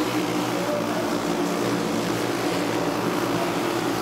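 A pack of racing karts with Briggs & Stratton Animal four-stroke engines running at speed around a dirt oval: several engines sounding together in a steady, overlapping drone.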